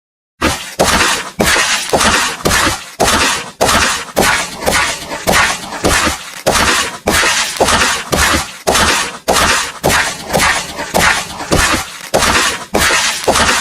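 A smashing, shattering sound effect repeated about twice a second, starting suddenly after dead silence. Each hit is sharp and fades quickly.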